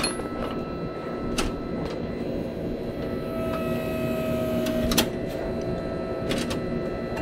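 Hydraulic pump of a 40-ton forging press built on an ironworker, running with a steady hum. A higher, strained note comes in for a second or two about halfway through as the press works the hot bar. Three sharp metallic knocks sound, the loudest about five seconds in.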